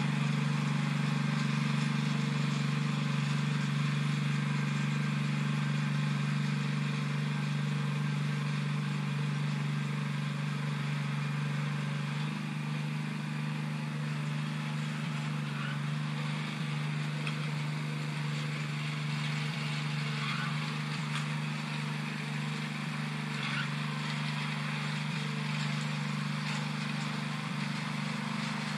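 Walk-behind tractor engine running steadily under load while it pulls a moldboard plough through the soil. The hum eases slightly about twelve seconds in.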